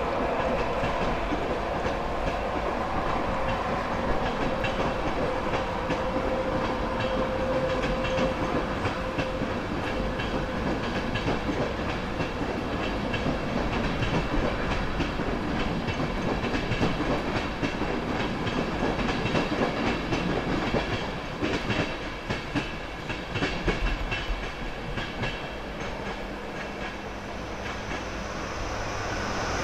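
Long express passenger train running past and away, with a steady rolling rumble and wheels clicking over the rail joints. Near the end a second express train approaches and the sound swells.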